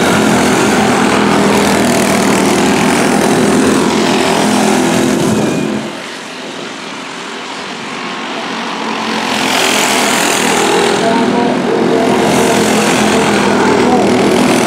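Several racing go-kart engines running hard as a pack passes close by. The sound fades about six seconds in as the karts move away, then grows louder again as they come back around near the end.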